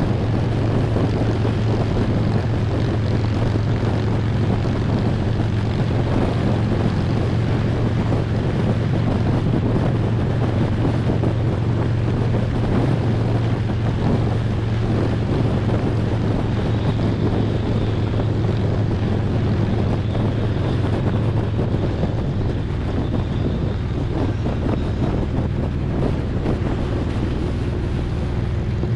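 Harley-Davidson Road Glide's V-twin engine running at a steady cruise, with wind rushing over the microphone.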